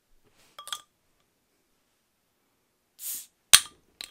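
A plastic-and-steel bottle opener handled against a glass soda bottle's metal crown cap: a few faint clicks, a short hiss at about three seconds, then one sharp click.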